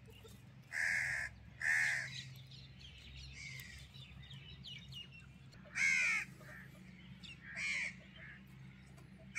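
Crows cawing: four harsh caws of about half a second each, two close together near the start and two more later, over a faint steady low hum, with a few faint chirps between them.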